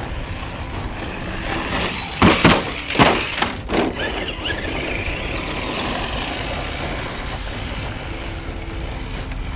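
Arrma Senton 4x2 Boost RC truck driving on pavement: its electric motor gives a high whine that rises and falls with the throttle, over steady tyre noise. A few loud knocks come about two to four seconds in.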